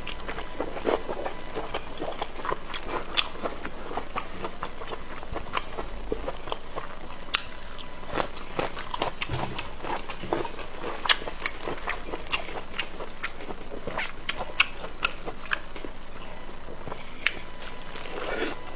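Close-up eating sounds of a person chewing pig intestine: irregular wet mouth clicks and smacks, several a second, over a steady low hiss.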